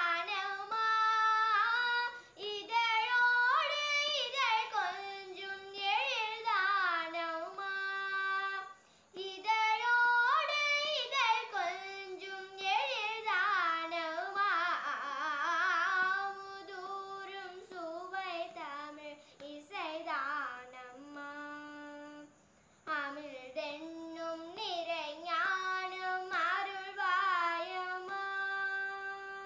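A young girl singing a Tamil song in Carnatic style, solo, with many sliding ornamented notes. She breaks off briefly twice, about nine seconds in and a little past twenty seconds, and holds one long steady note near the end.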